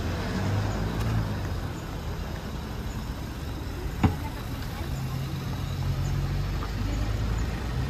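Road traffic: motor vehicle engines running with a steady low hum. A single sharp knock comes about four seconds in.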